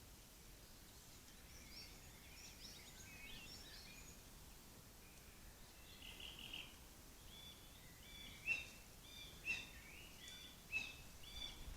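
Faint birdsong outdoors: a run of short chirping notes, with several louder, sharper calls in the last few seconds.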